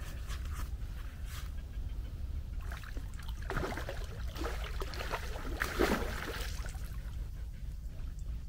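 Water splashing in two swells, about three and a half and six seconds in, while a hooked carp is being played, over a steady low rumble.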